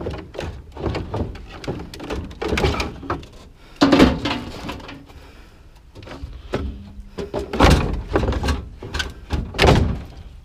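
Scrap items being handled and set down: an irregular run of knocks, clunks and clatter, with several heavy thuds, the loudest about four seconds in.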